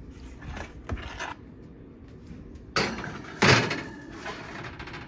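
Metal baking pan going into a kitchen oven, with knocks and clatter of the pan and oven door and the loudest bang about three and a half seconds in.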